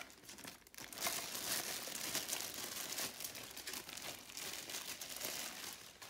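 Clear plastic packaging bag crinkling and rustling as a plug-in outlet extender is worked out of it by hand.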